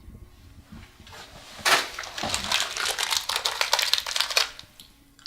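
Rustling and crinkling, a dense run of small crackles lasting about three seconds in the middle.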